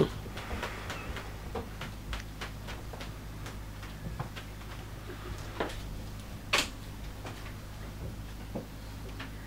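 Scattered light knocks and clicks of a performer moving on a wooden stage floor, handling a coil of rope and stepping up onto a wooden folding step stool, with a sharper knock about two-thirds of the way through. A steady low hum runs underneath.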